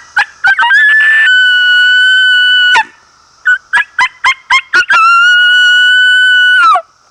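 Double-reed coyote howler diaphragm mouth call blown hard, imitating coyote vocalizations. A few quick yips lead into a long steady high howl of about two seconds, then a run of about six short yips, then a second long howl of about two seconds that drops in pitch at its end as the caller drops his jaw.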